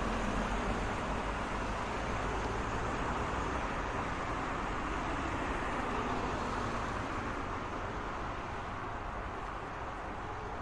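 Road traffic noise: a steady rush of cars passing, easing off slightly near the end.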